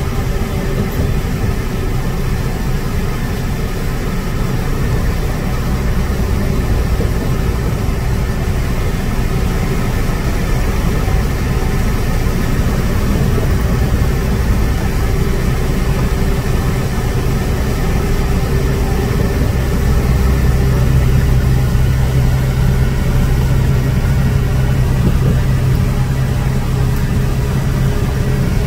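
Truck engine and road noise heard from inside the cab while cruising on the highway: a steady low engine hum over tyre and wind noise, growing a little louder about two-thirds of the way through.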